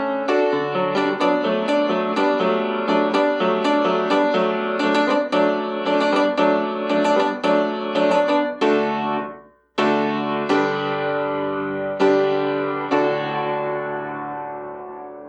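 Piano music: a quick run of notes that breaks off about ten seconds in, then a few struck chords that ring and fade away.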